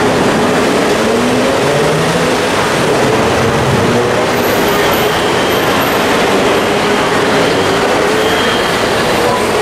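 Loud, steady city traffic noise with a wavering mechanical whine running through it.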